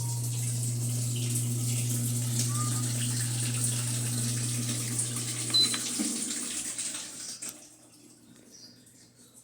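Electrolux LTE12 top-loading washing machine running with water rushing and a steady low hum; both stop about six seconds in and fade out.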